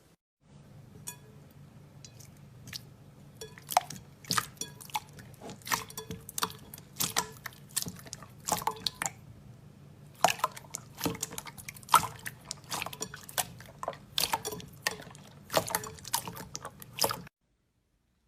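Slime being squished, giving irregular wet clicks and pops over a low steady hum. The sound stops suddenly near the end.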